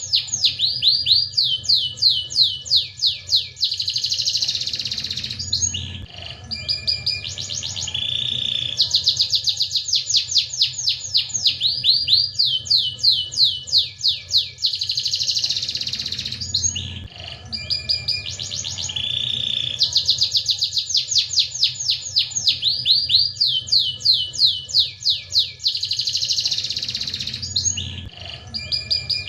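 Domestic canary singing long, fast trills of sweeping notes, with rolling and short buzzy phrases and brief pauses between songs. The same song comes back about every eleven seconds over a steady low hum, as in a looped master recording for tutoring young canaries.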